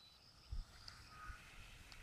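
Faint, steady high whine of a radio-controlled model airplane's motor as it flies low on approach, with a few low thumps about half a second in.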